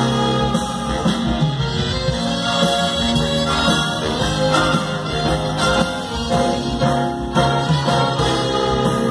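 A big band playing live jazz: trumpets, trombones and saxophones with a clarinet, backed by electric guitar and bass over a steady beat.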